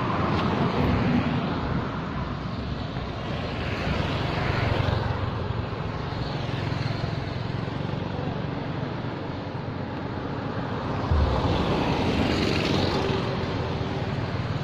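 Road traffic: vehicles passing by, swelling up and fading away three times, at the start, about four seconds in, and again near the end, over a steady low rumble.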